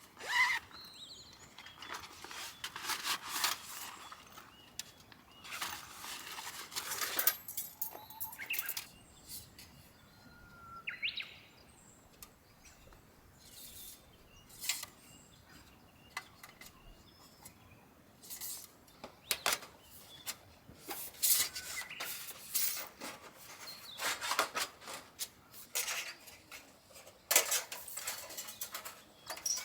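Irregular rustling with short clicks and knocks, like gear being handled and moved around, with a brief rising chirp about eleven seconds in.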